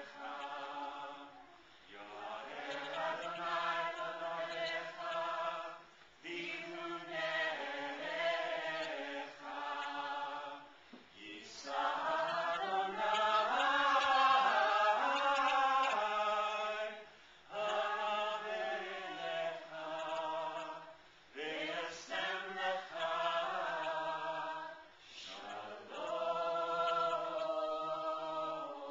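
Several voices singing together in harmony, choir-like, in lines a few seconds long with short breaks between.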